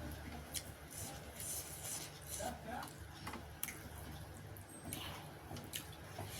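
Eating sounds: soft chewing with a few short clicks and smacks, over a low steady hum.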